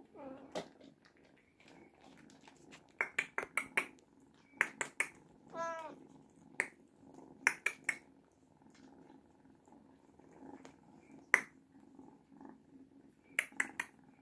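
Oriental cats purring steadily, with one short, rising meow about halfway through. Sharp clicks come in quick runs of two to four, several times, and are the loudest sounds.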